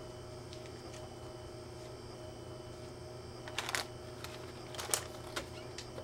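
Faint room tone with a steady electrical hum. A few brief rustles and clicks come between about three and five and a half seconds in, as a person in dark clothing moves right up against the camera.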